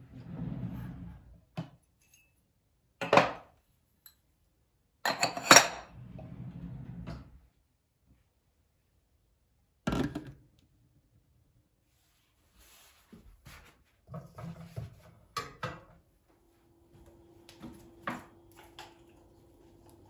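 Crockery and kitchenware being handled and put away: separate clinks, clatters and knocks of dishes and utensils being set down, with a sharp knock about halfway through. Late on a steady low hum sets in under lighter clicks.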